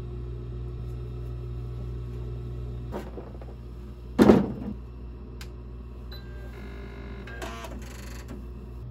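A steady low hum from the Consew industrial sewing machine's running motor stops about three seconds in. It is followed by a loud single thump as the Singer computerized sewing machine is handled. Near the end come short electronic-motor whirs and clicks as the Singer machine powers on and sets its needle.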